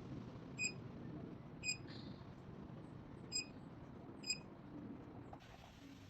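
Four short electronic beeps, unevenly spaced, from the touch control panel of an UNTOMAX dual-zone wine fridge as its buttons are pressed, over a faint low background noise that stops near the end.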